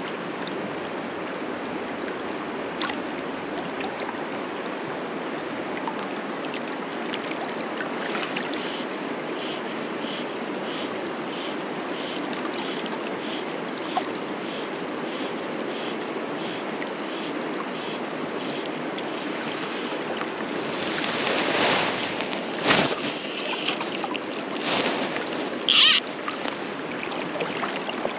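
Steady rush of a river in spate flowing past. It swells a little about 21 seconds in, with a sharp knock and two brief, louder hissing noises near the end.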